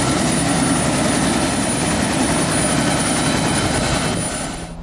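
Yellow helicopter running on the ground with its main rotor turning: a steady rushing noise with a thin high whine and a rapid, even beat from the blades. It fades out near the end.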